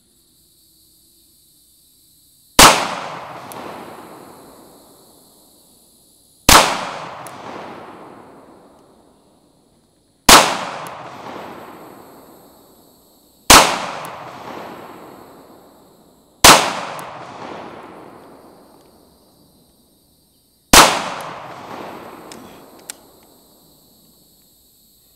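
Six single shots from an FN 509 Tactical 9mm pistol, fired slowly about three to four seconds apart, each crack followed by a long echo dying away over about three seconds.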